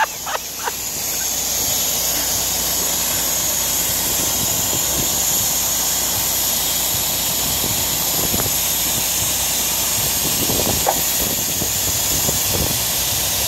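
Steady hiss of compressed air from the Volvo 780 semi truck's air suspension, with a few faint knocks of work on the frame.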